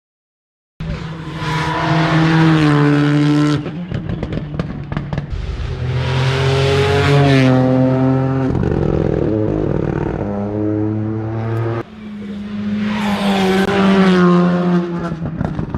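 Rally car engine revving hard under acceleration, its pitch climbing in each gear and dropping sharply at each upshift, three or four times over.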